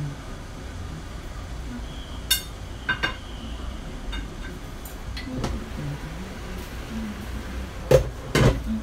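Cookware clatter: a few light clinks, the first with a short ring, about two to three seconds in, then two louder knocks of a glass pot lid being handled on a frying pan near the end.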